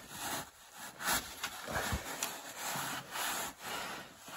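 Wad of paper towel scrubbed back and forth over an oily steel crossmember, a run of short rubbing strokes as spilled transmission fluid is wiped up.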